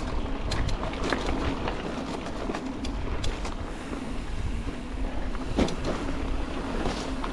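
Wind rumbling on the microphone, with a faint steady hum and scattered light clicks and rattles.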